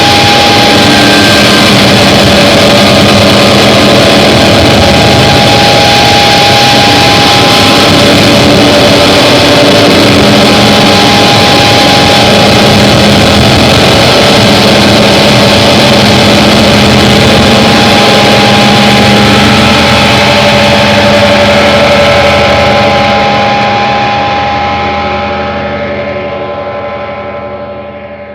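Harsh noise and drone music: a loud, dense wall of distorted noise with several held tones under it. It fades out over the last several seconds, with the highs dropping away first.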